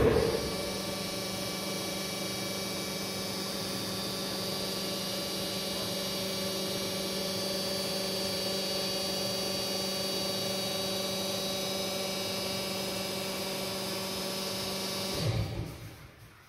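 Electric wine transfer pump running steadily: a constant motor hum with a thin whine above it, stopping about fifteen seconds in.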